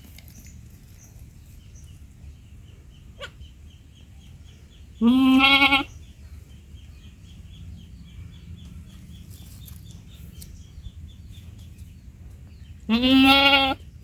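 Baby goat bleating twice: two loud, wavering calls, each under a second long, about eight seconds apart.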